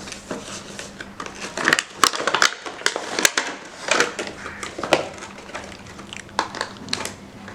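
A microphone's retail box being opened by hand: irregular rustling, crinkling and small knocks of packaging being handled.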